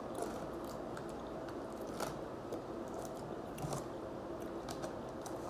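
Close-miked chewing and biting: soft crunches and wet mouth clicks of someone eating, scattered irregularly.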